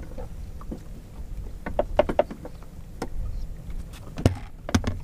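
Steady low wind rumble on the microphone over a small fishing boat, with a scatter of short clicks and knocks from fishing gear being handled on board; the sharpest knocks come about two seconds in and again near the end.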